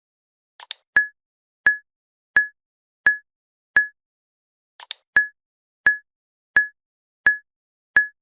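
Sparse electronic beat: a short pitched blip about every 0.7 seconds, with a quick double snap twice, about four seconds apart, over total silence.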